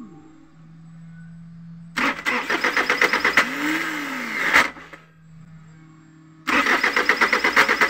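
Mitsubishi 4M40 diesel engine cranked by the starter twice, each time for about two to three seconds with an even chugging rhythm of about five pulses a second, and not catching either time. A faint steady hum fills the gaps between the two tries.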